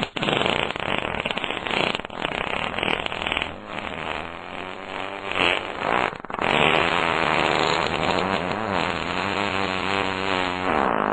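Long fart sounds. First comes a rattling, sputtering one. After a brief break about six seconds in, a long fart follows with a buzzing tone that wavers in pitch.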